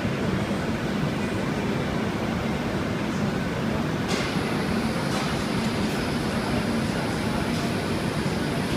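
Steady industrial roar of a glassworks hot shop's furnace and equipment. A faint high whine joins about four seconds in.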